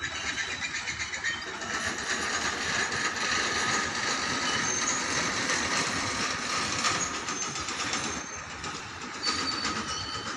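Loaded open coal wagons of a freight train rolling past: a steady rumble and rattle of wheels on the rails, with thin high squeals from the wheels coming and going.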